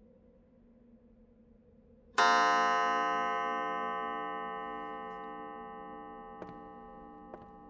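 A faint low drone, then about two seconds in a single loud struck tone, rich in overtones and bell-like, that rings on and slowly fades. Two faint clicks near the end.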